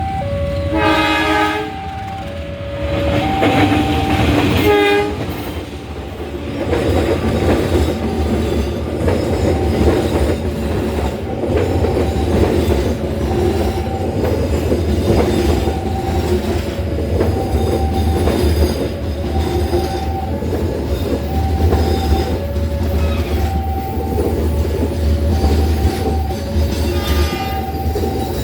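Train horn blasting about a second in and again near the end, while a train runs through a level crossing with a steady rumble and wheel clatter on the rails. Under it the crossing's warning signal repeats an alternating two-note chime.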